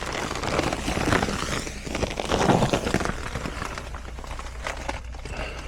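Rustling and scraping as a thermostat wire is pulled through by hand, loudest about two to three seconds in, over a low steady hum.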